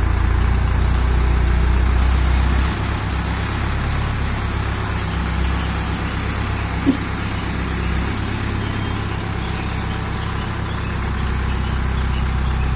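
Diesel engine of an Escorts Hydra 14 pick-and-carry crane running steadily, dropping slightly in level about three seconds in. One short sharp click near the middle.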